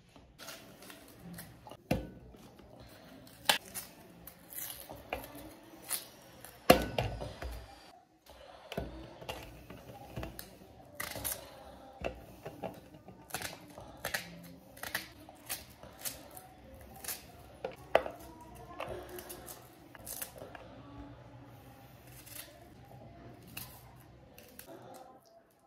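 Knife chopping onions on a cutting board: irregular sharp knocks of the blade, with a few louder strikes.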